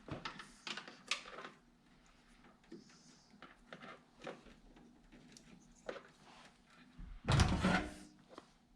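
Hand-tool handling: scattered light clicks and knocks of tools and small parts being handled, with one louder clunk and rattle about seven seconds in.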